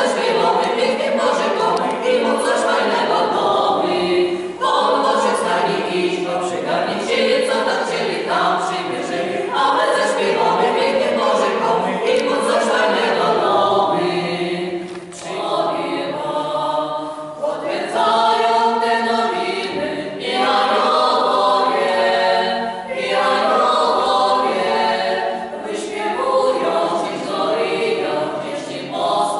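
Mixed men's and women's folk choir singing a Polish carol (kolęda) a cappella, in several voices, phrase after phrase with short breaths between.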